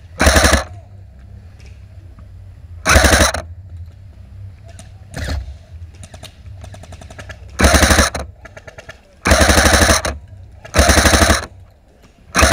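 Airsoft electric rifle, the ICS L85A2, firing short full-auto bursts of rapid ticks, about five in all, the longest lasting about a second. A fainter burst from another airsoft gun comes around five seconds in.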